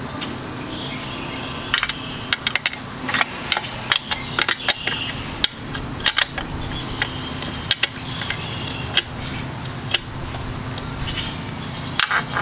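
Sharp metal clicks and clinks of a wrench on a nut and loose parts against a Turbo 400 transmission's aluminium case, clustered in the first half. Later an insect chirps in fast, even pulses, twice.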